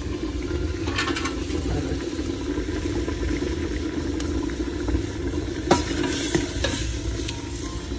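Thick chicken curry boiling hard in an open aluminium pot over a wood fire, a steady bubbling rumble. A ladle clinks against the pot a few times about six seconds in as it is stirred.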